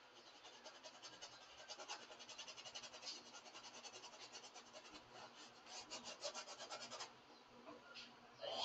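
Faint paintbrush strokes on a stretched canvas: a fast run of short strokes, several a second, that stops about seven seconds in.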